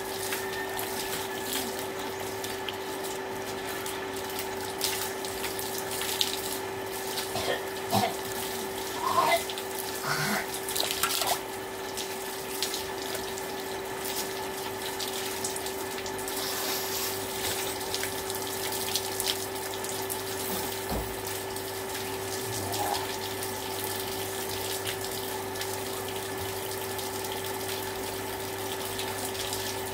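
Water running from a hose and splashing over a person's body and onto the ground, with a steady hum underneath. A few louder splashes come together a few seconds in.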